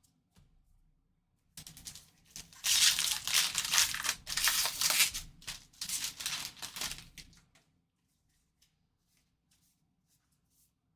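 Foil wrapper of a trading card pack being torn open and crinkled for about six seconds, starting a second and a half in, then a few faint ticks.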